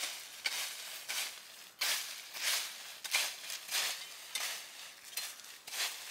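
Small short-handled camp shovel scraping and sweeping through dry fallen leaves and soil in repeated strokes, roughly one every two-thirds of a second, with the crackle of dry leaves.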